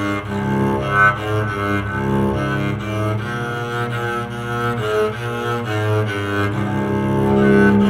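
Homemade electric cello being bowed, playing a melody of changing notes over a steady, held low note.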